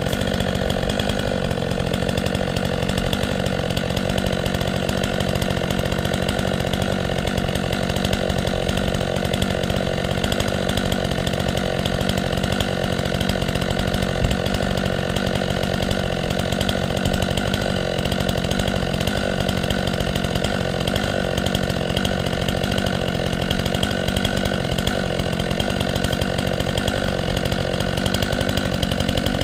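Chainsaw running steadily at full throttle, cutting into a tree trunk.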